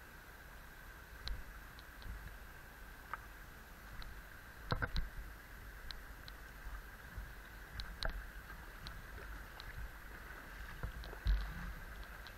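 Faint steady rush of a river flowing, with scattered small clicks and ticks.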